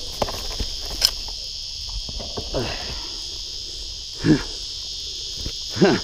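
A steady high-pitched insect chorus, with light clicks and rustles of footsteps through dry grass. About two-thirds of the way through and again near the end come two short, louder sounds with a bending pitch, like brief voice sounds.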